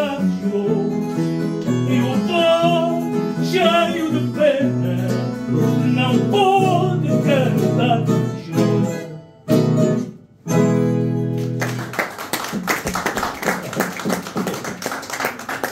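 Acoustic guitar playing the closing instrumental phrases of a fado, with bending, vibrato-laden notes that stop on final chords about nine to ten seconds in. From about twelve seconds, an audience applauds.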